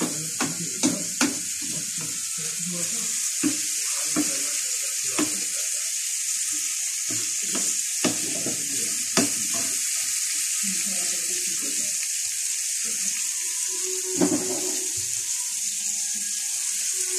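Karela with onions and tomatoes sizzling steadily in a frying pan on a gas flame, with scattered clicks and scrapes of a wooden spatula stirring against the pan. The tomato juices are being fried dry (bhunai).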